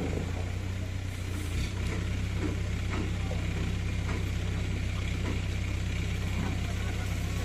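Diesel engine of an ACE 15XW pick-and-carry crane running steadily while the crane lifts an electric pole. It picks up slightly in level about a second and a half in.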